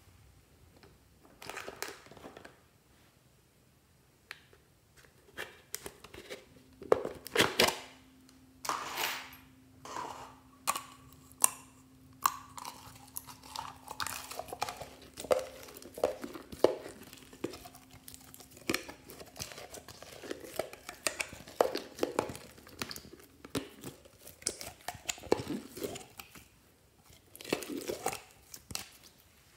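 Green glitter slime being squeezed and pulled out of a soft clear plastic container, the plastic crinkling and the sticky slime giving irregular crackles and pops.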